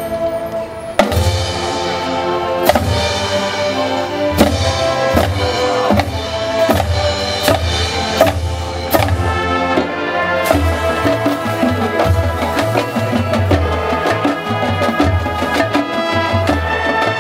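High-school marching band playing its field show: sustained wind chords over drums and percussion. The full band comes in loud about a second in, with accented hits repeating about once a second.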